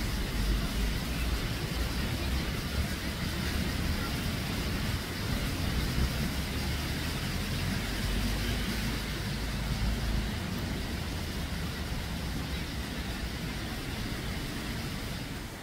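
Steady outdoor background noise: a low rumble with a hiss over it, the rumble easing about two-thirds of the way through.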